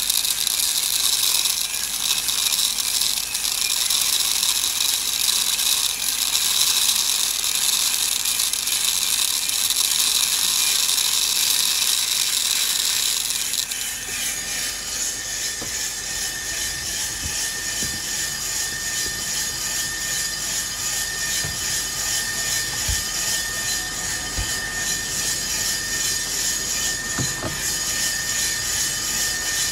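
Aillio Bullet R1 V2 coffee roaster running with coffee beans tumbling in its turning drum: a steady hiss and rattle. About halfway through it drops a little and goes on as a quieter steady whir with a faint high whine.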